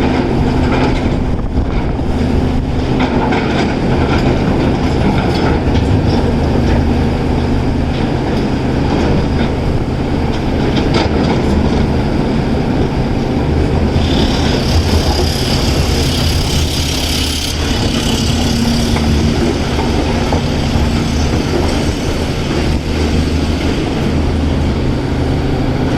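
Caterpillar 336 hydraulic excavator's diesel engine running steadily under working load, with a rough, clattering texture throughout. A high hiss joins in about halfway through and lasts around three seconds.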